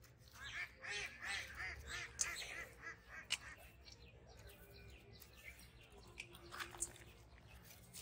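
A quick run of repeated honking calls from domestic waterfowl, with a single sharp click a little after three seconds in and fainter calls later.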